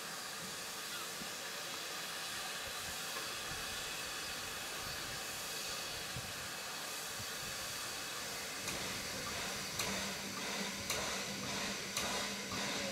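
Narrow-gauge steam tank locomotive hissing steam steadily. Later a low steady hum joins, and near the end sharp beats come about once a second.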